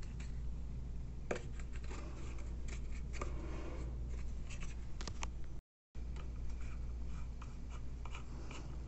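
Small irregular clicks, taps and rubbing of toiletries and a plastic mouth guard being handled at a bathroom sink, over a steady low hum. The sound cuts out for a moment a little before six seconds in.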